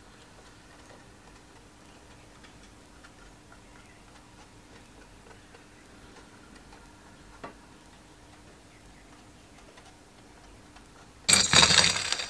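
Quiet workshop room tone with faint light ticks and a single click about seven and a half seconds in, then near the end a short, loud burst of clattering noise.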